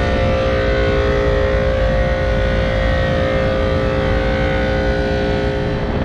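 Packaged R22 rooftop air-conditioning unit running: its condenser fan motors and one of its two compressors give a steady mechanical hum with a few steady tones. The running circuit is low on refrigerant; the second compressor is off because its circuit is completely out of refrigerant.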